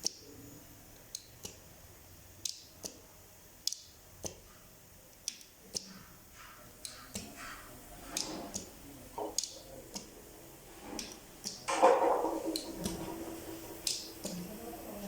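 A table fan's four push-button switches clicking as a repeat-testing rig works them: sharp, separate clicks at an irregular pace of about one to two a second. About twelve seconds in there is a louder, longer noise, and a steady low hum starts and carries on.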